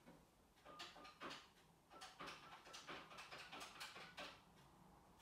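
Faint taps and a few short beeps from a phone keypad as a number is dialled, several taps a second.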